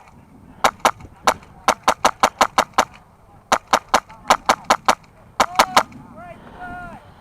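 Airsoft rifle firing, sharp cracks: a few single shots, then three quick strings at about six or seven shots a second. Near the end come two arching, honk-like calls.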